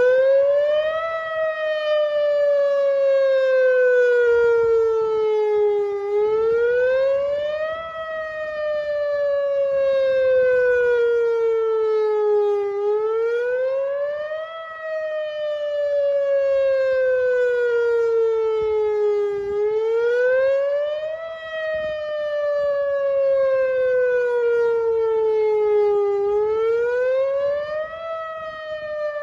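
Whelen WPS-2906 electronic outdoor warning siren sounding its attack signal after the voice message. It is a wailing tone that climbs quickly for about a second, then slides slowly down for about five seconds, and repeats this rise and fall about every seven seconds.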